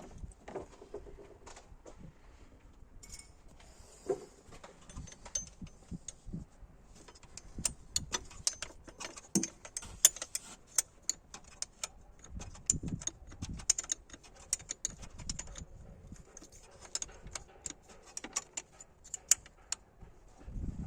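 Hand tools and small metal parts clinking and clicking against each other in irregular, rapid taps as they are handled, busiest from about a third of the way in until near the end.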